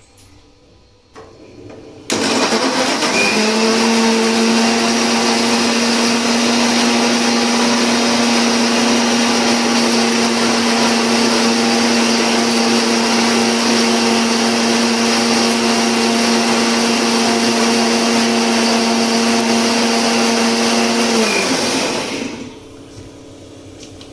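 Preethi Zion mixer grinder running with tomatoes, sugar and water in its steel jar, grinding them into juice. The motor starts suddenly about two seconds in, climbs to a steady whining hum for nearly twenty seconds, then is switched off and spins down, its pitch falling, near the end.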